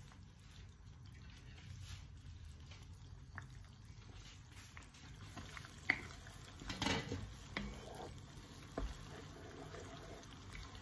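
Thick chili and tomato sauce starting to bubble and sputter in a frying pan over high heat as it comes up to the boil, with a wooden spatula stirring through it. A scattering of sharp little ticks and knocks, the loudest about six seconds in.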